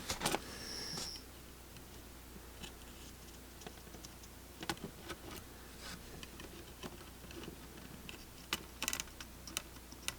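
Faint, scattered small clicks and taps of tools against a phone circuit board while the soldered-in display is being desoldered, over a low steady hum. A brief high-pitched hiss comes about half a second in, and a quick cluster of clicks near the end.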